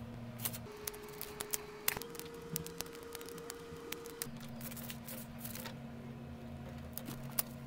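Scissors snipping a thin piece of oak veneer, with the patch being handled: a scatter of short sharp clicks. Under them, faint steady tones change pitch every second or two.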